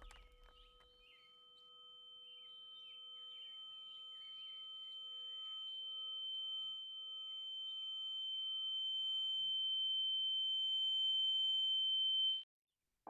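A high, steady ringing tone, the film sound effect of ears ringing after a blast, slowly swelling louder and cutting off suddenly near the end. Fainter lower tones pulse beneath it, with faint chirping in the background.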